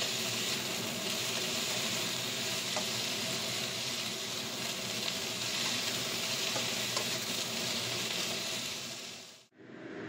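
Broccoli and garlic frying in a hot wok: a steady sizzling hiss. The sizzle cuts off abruptly near the end, and a lower, duller steady noise follows.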